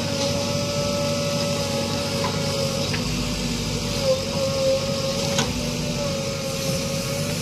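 JCB 3DX backhoe loader's diesel engine running steadily under work, with a constant whine that dips briefly in pitch about four seconds in and a few short clicks or knocks.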